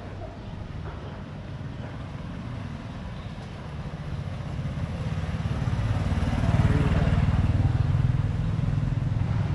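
A motorbike engine drawing near and passing close by: it grows louder from about four seconds in, is loudest around seven seconds, then eases off.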